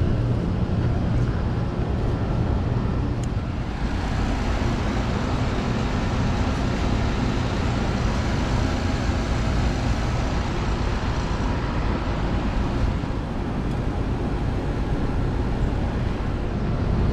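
Rooftop air-conditioning unit running: a steady low hum with fan and airflow noise, growing fuller and higher about four seconds in.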